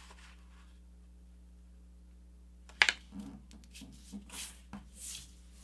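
A sheet of printer paper being folded in half and creased by hand: faint room tone at first, then a sharp paper snap about three seconds in, followed by soft rustles and a few quick swishes as the hands slide along the fold to press the crease.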